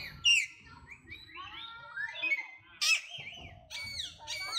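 Monkeys giving a rapid series of short, high-pitched squeals and chirps that slide up and down in pitch. The loudest calls come about a third of a second in and just before three seconds.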